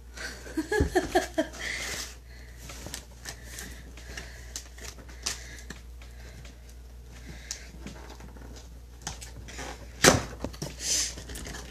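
Cardboard box and its packaging being handled and opened on a table: irregular rustling, scraping and light tapping, with a louder knock about ten seconds in.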